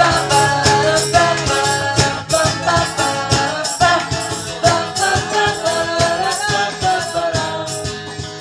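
Live drum kit and vocal music: drums keep a steady beat while a high voice sings the wordless sing-along line "pa pa pa, pa la la la pa".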